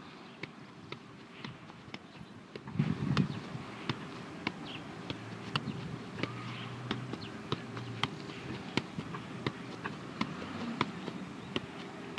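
A football being juggled: a steady run of light, sharp touches, about two a second, as the ball is kept up off the feet and legs. A short, louder low rumble comes about three seconds in.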